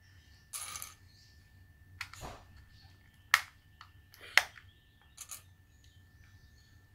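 Hands working at the plastic shell of an L.O.L. Surprise Confetti Pop ball: a short rustle about half a second in, then a few separate sharp plastic clicks and taps.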